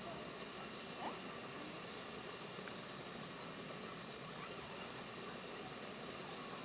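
Steady hiss of a portable gas single burner running under a lidded frying pan.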